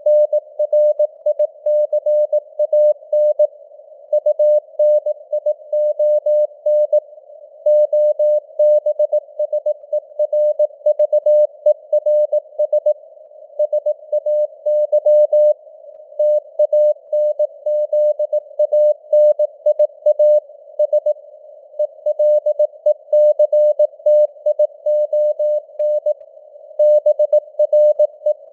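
Morse code sent at 18 words per minute: a single steady mid-pitched tone keyed on and off in dots and dashes, over a hiss of simulated radio band noise.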